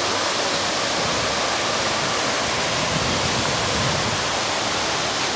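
Water cascading into a pool from an outdoor fountain, a steady rushing hiss.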